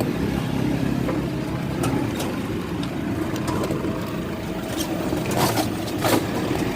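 Three-wheeled electric bike riding up a slope on a 60-volt battery: a steady low rumble from the motor and road, with a few sharp rattles or knocks about two seconds in and again near the end.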